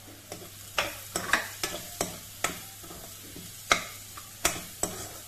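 Spatula scraping and knocking against a kadai as onions and garlic are stirred, in irregular strokes over a steady sizzle of frying in oil.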